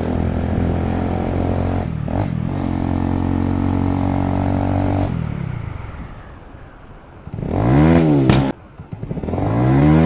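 Motorcycle engine running steadily, then fading away, followed by two quick revs whose pitch rises and falls.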